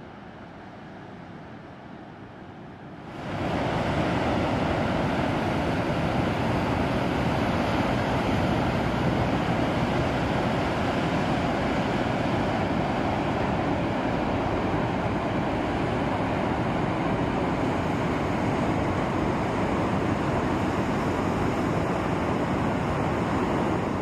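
Steady rushing noise of wind and ocean surf on a beach. A fainter hiss gives way abruptly to the full, loud rush about three seconds in.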